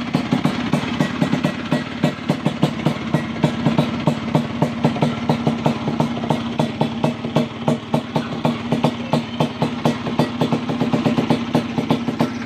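Motorcycle engine with a bored-out cylinder idling, a steady, even beat of exhaust pulses throughout.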